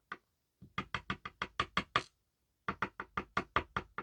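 Two quick runs of light, sharp knocks, about eight a second, from a lock core being tapped against a hard surface to shake out its pins.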